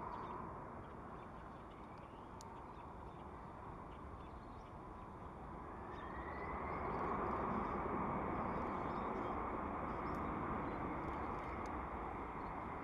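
Boeing 747's four jet engines heard from a distance as the airliner rolls out after touchdown: a steady rushing noise that swells about halfway through, with a faint rising whine as the engines spool up.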